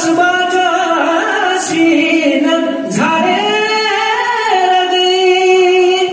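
A man singing into a handheld microphone, holding long notes that bend in pitch, with a short break for breath about three seconds in.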